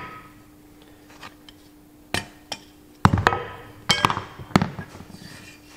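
Sharp metallic clinks and knocks, about six of them over two and a half seconds with a short ring after each. They come as the steel thrust bearing is worked off a tractor kingpin and stub axle and the parts knock together and against the bench.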